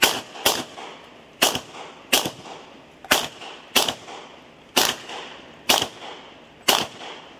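Glock pistol firing a string of about nine shots at an unhurried, uneven pace, some in quick pairs and others about a second apart, each shot followed by a short echo.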